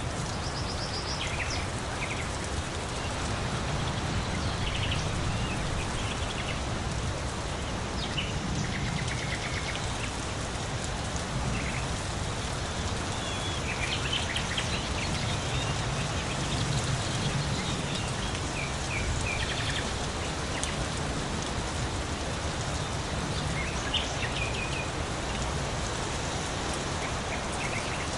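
Steady rain falling, with birds calling in short, scattered chirps over it.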